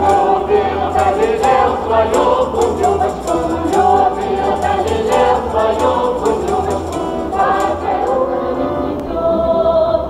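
Mixed folk ensemble of men and women singing a Russian folk song in chorus with accordion accompaniment, over steady rhythmic claps.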